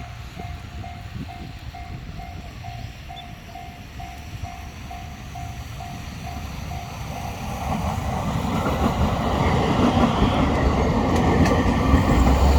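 Level-crossing warning bell dinging about twice a second, then a JR E231-series electric commuter train approaching; its running noise grows steadily louder from about halfway through and covers the bell.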